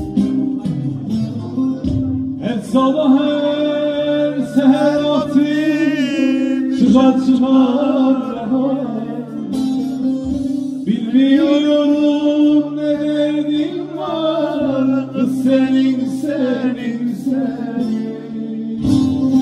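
A man sings Turkish folk song into a microphone over a bağlama and an acoustic guitar. The instruments play alone for about two seconds, then he sings two long phrases, his voice wavering and bending in pitch, with a short instrumental gap between them.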